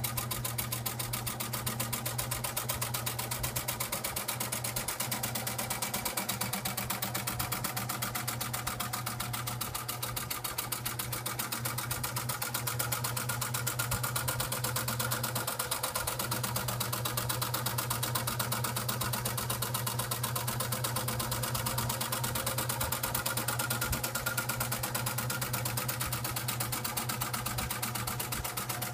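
Vintage Pfaff 130 zigzag sewing machine running steadily on its electric motor: a fast, even mechanical clatter over a constant low hum.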